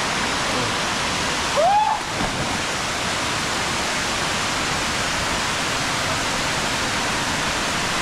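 Rushing water of a cascading waterfall spilling into its pool, a steady hiss throughout. About two seconds in comes one short cry that rises and falls in pitch.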